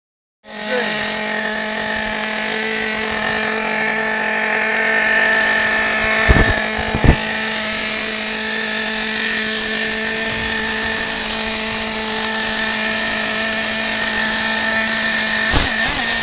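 Nitro two-stroke glow engine of a Team Associated Nitro TC3 RC touring car, running at a steady idle. There are two short knocks partway through. Near the end the revs start to rise and fall as the throttle is worked.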